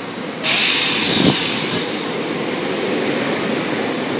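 SEPTA Silverliner IV electric multiple-unit train pulling into an underground platform and running past with a steady rumble. A sudden loud hiss starts about half a second in and fades over the next second and a half.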